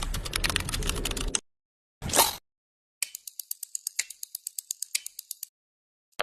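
A string of separate mechanical clicking sound effects. It opens with a dense burst of rapid clicks, then a short swish-like burst, then a steady run of sharp clicks at about eight a second that lasts some two and a half seconds.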